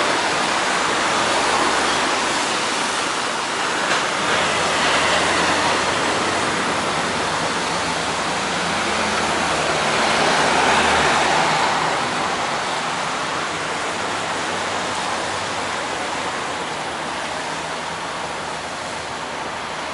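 Road traffic noise: a steady wash of passing vehicles, swelling as vehicles go by about four seconds in and again around ten to eleven seconds in, then easing a little.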